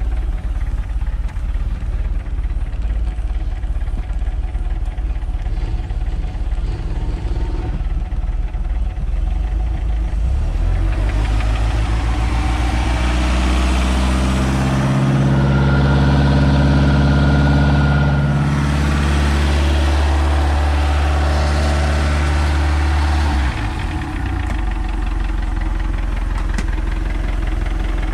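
MerCruiser 140 hp 3.0-litre (181 cid) four-cylinder sterndrive engine, freshly fitted with new points, condenser, cap, rotor and plugs, running at a steady idle. About ten seconds in it is throttled up and its pitch and level rise, peaking a few seconds later. It drops back to idle near the end.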